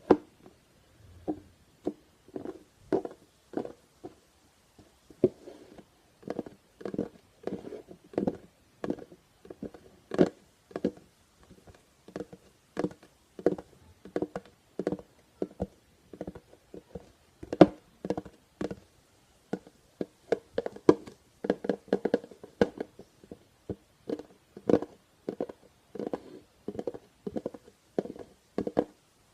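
Tapping and knocking on plastic Tupperware containers: short, sharp taps in uneven runs, often several a second, with brief pauses between runs.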